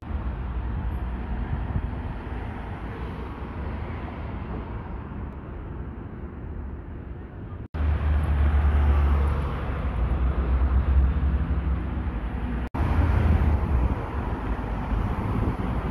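Old Vienna tram running: a steady rumble with a deep low hum, louder in the second half. The sound breaks off for an instant twice, about eight and thirteen seconds in, at edits.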